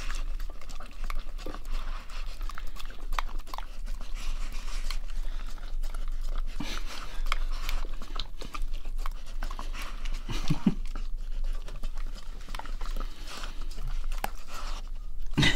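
Dog licking scraps from a stainless steel bowl, its tongue lapping against the metal in a long run of small wet clicks and taps.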